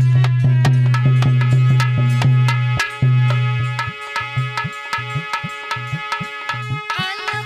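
Instrumental Alha folk music: a hand drum plays a fast, even beat over a sustained low drone. About halfway the drone fades and the drum's bass strokes bend in pitch, and a wavering melody line comes in near the end.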